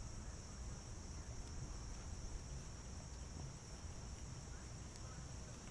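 Steady high chirring of insects, with a low wind rumble on the microphone underneath.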